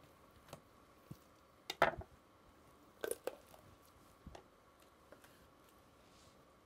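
Raw chicken being handled and pulled apart on a wooden butcher block: a few short, wet squishes and light knocks. The loudest comes about two seconds in and another pair about a second later, with smaller ticks in between.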